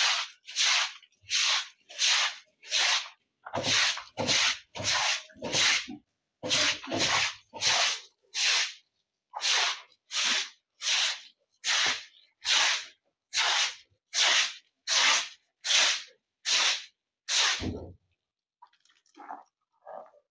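Stiff broom scrubbing a wet concrete floor in steady back-and-forth strokes, about one and a half a second, stopping near the end.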